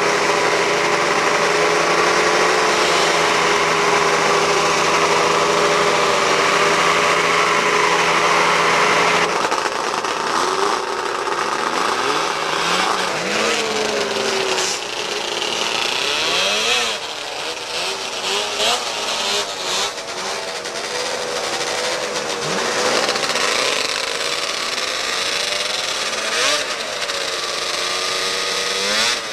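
Racing snowmobiles' two-stroke engines running at a steady high pitch. About nine seconds in the sound changes abruptly to several engines revving up and down, their pitches rising and falling over one another.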